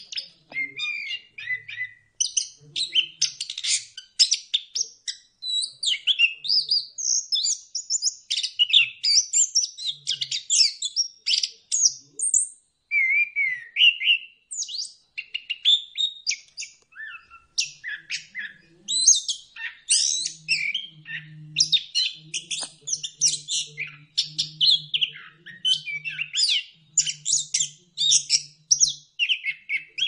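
Chestnut-capped thrush (anis kembang) in full, nonstop song: a rapid, continuous run of varied high chirps, trills and slurred whistles with hardly a pause.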